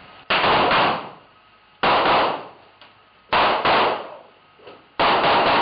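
Prop guns firing blanks in four short bursts of rapid shots, about one and a half seconds apart, each echoing briefly in the studio.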